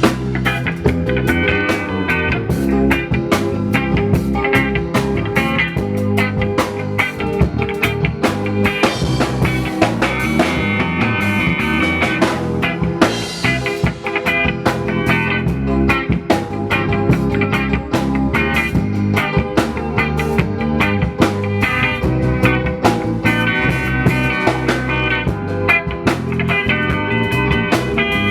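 Live band playing an instrumental rock groove on electric guitar, bass and drum kit, through a sound system, with a steady beat.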